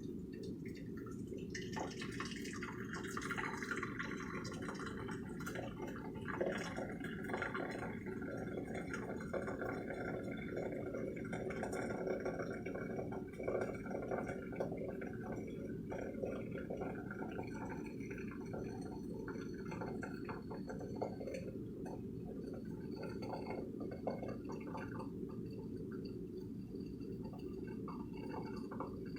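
Water dripping and trickling in irregular spurts over a steady low hum.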